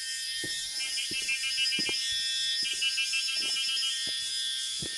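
High-pitched chirping in rapid pulsed bursts about a second long, repeating every second and a half or so, over a steady high-pitched insect hum, with scattered soft low thumps.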